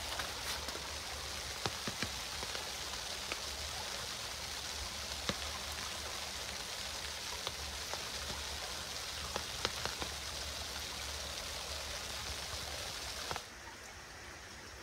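Rain and wet snow falling onto a shallow stream channel, a steady hiss with scattered sharper drop ticks. About a second and a half before the end it changes suddenly to a quieter trickle of running water.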